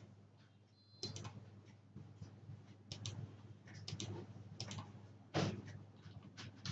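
Computer mouse clicks and keyboard key presses, short and irregularly spaced, over a low steady hum, with one louder knock about five seconds in.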